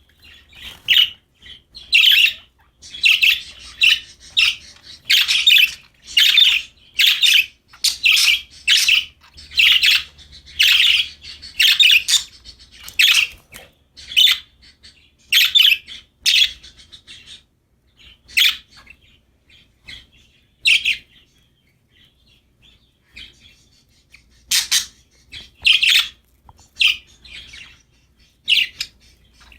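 Pet budgies (budgerigars) chirping in a rapid run of short, high calls. The calls thin out past the middle, fall almost silent for a few seconds, then pick up again with a few more chirps.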